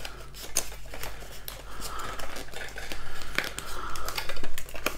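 Hands working the cardboard casing of a Vaisala RS80 radiosonde: the cardboard rustles and crinkles, with many small scattered clicks and scrapes as flaps are bent back.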